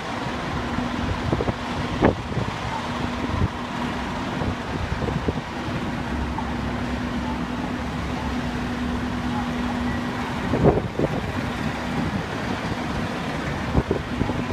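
Fire apparatus engines running at a structure fire, a steady drone with a held tone that stops about ten seconds in, over wind noise, with a few sharp knocks, the loudest about two seconds and ten and a half seconds in.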